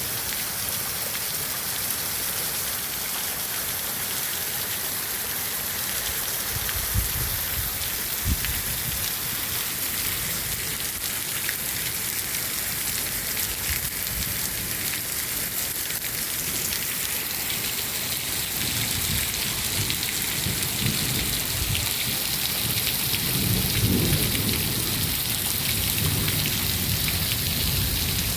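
Heavy rain falling steadily as a dense hiss. Low rumbles, likely thunder, come in about seven seconds in and swell again through the second half, loudest a few seconds before the end.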